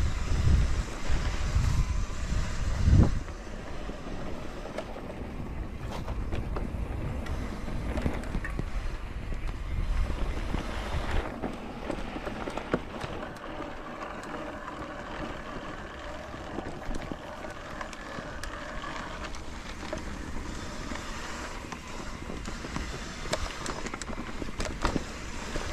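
Wind buffeting the microphone over the rolling noise of a bicycle on a trail, with scattered small clicks and rattles. The wind rumble is heaviest for the first three seconds, then settles into a steadier rolling sound.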